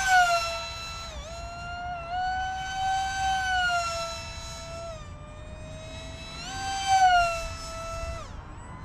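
High-pitched whine of a micro RC jet's brushless electric motor and propeller in flight, its pitch rising and falling with throttle and passes. It is loudest just after the start and again around seven seconds in, dropping in pitch after each of those peaks, with brief dips in pitch about a second in and near the end.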